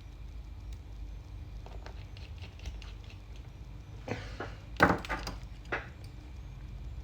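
Small clicks, taps and scrapes of hands handling laptop parts and tools during reassembly, with a cluster of sharper clicks about four to six seconds in, the loudest near five seconds, over a steady low hum.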